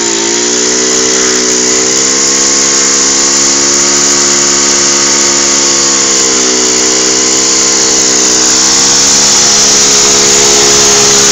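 Small 64 cc engine of a Quest Q3 mini held at high revs during a burnout, its pitch wavering slightly and dipping briefly a couple of times, over a steady loud hiss.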